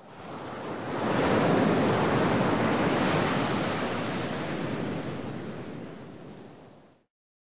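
Breaking-surf sound effect: a rush of noise that swells over the first second, holds, then slowly fades and cuts off abruptly about seven seconds in.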